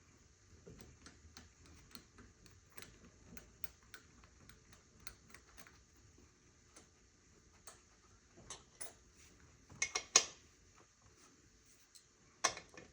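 Scattered light clicks and ticks of hand tools and engine parts being handled, with a few sharper, louder clacks about ten seconds in and again near the end.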